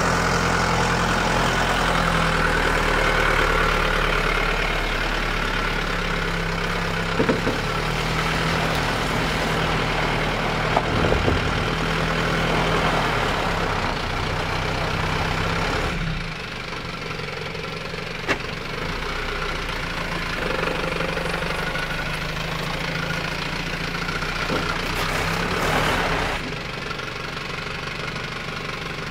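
Isuzu TF Rodeo ute's engine running at low revs as it crawls up a rutted, rocky dirt track, with a few sharp knocks along the way. The engine note eases off about halfway through.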